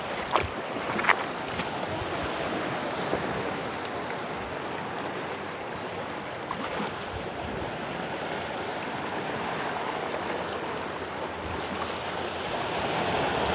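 Steady wash of small surf along a beach with wind on the microphone, and a couple of sharp clicks in the first second or so.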